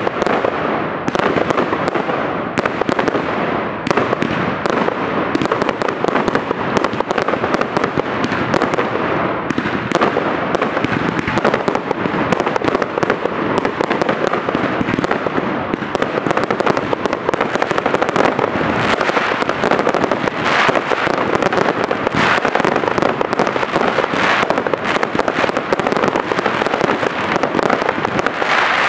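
Dense, continuous fireworks: many overlapping bangs from aerial shells and firecrackers with crackling in between, one after another with no pause.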